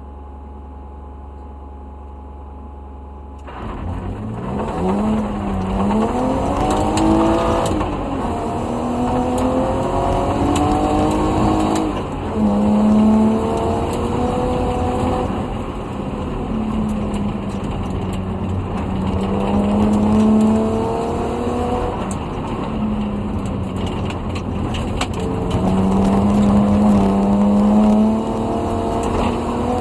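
Inside a 1991 BMW 318is E30 rally car fitted with a 2.5-litre BMW M50 straight-six, driven hard on a gravel stage. After a few seconds of steady low hum, the engine note climbs and drops again and again as it shifts up and down through the gears, with gravel clicking against the car.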